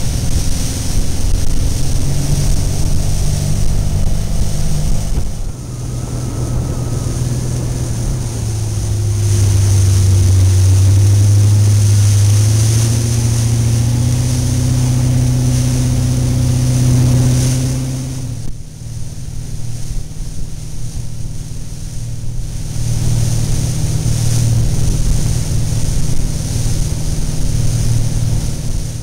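Motorboat engine running under way, with water rushing in the wake and wind buffeting the microphone. The engine note climbs about a third of the way in, then eases off suddenly about two-thirds through before settling back to a steady run.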